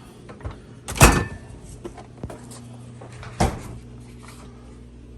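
Two loud knocks about two and a half seconds apart, with a few lighter clicks between them, over a low steady hum.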